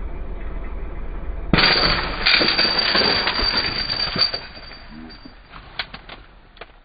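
Dump truck engine labouring under load, then about a second and a half in a sudden loud burst of rapid clattering and banging for a couple of seconds: the truck's anti-slip tyre chain snapping at its tail end. Scattered clicks follow near the end.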